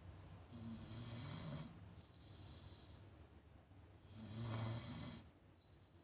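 A sleeping dog snoring: two snores, each about a second long and about three and a half seconds apart, each followed by a softer, hissing breath out.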